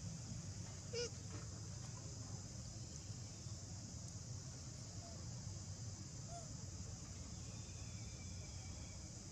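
Steady high-pitched drone of insects, crickets or cicadas, with a low rumble beneath. A brief pitched squeak about a second in, and two faint short chirps later.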